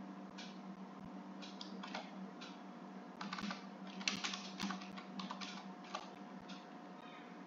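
Typing on a computer keyboard: irregular key clicks, busiest around the middle, over a faint steady hum.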